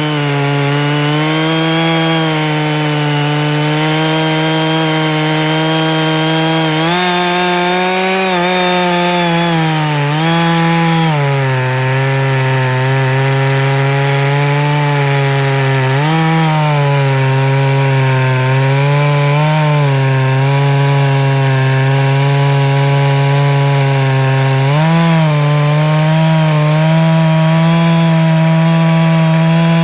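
Neo-tec NS892 two-stroke chainsaw with a .404 chain, held at full throttle while cutting wood. The engine pitch sags under load and picks back up several times.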